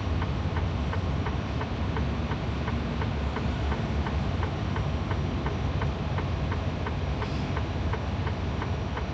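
Freightliner Cascadia diesel engine rumbling at low speed, heard in the cab, under the turn-signal indicator ticking steadily about two or three times a second.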